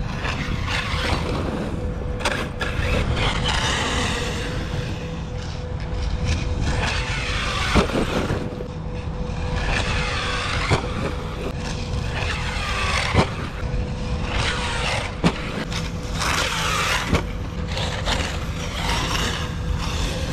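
ARRMA Kraton EXB 1/8-scale brushless electric RC truck being driven, its motor whine rising and falling with the throttle, with a few sharp clicks from the drivetrain. The owner takes the clicking for grinding internals, most likely the new rear diffs.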